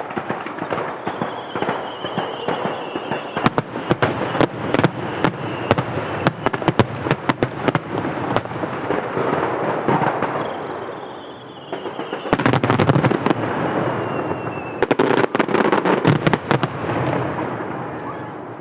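Fireworks display: rapid volleys of aerial shell bursts, many sharp bangs over a dense crackle. It goes in two barrages with a short lull between them, a thin falling whistle now and then, and dies away near the end.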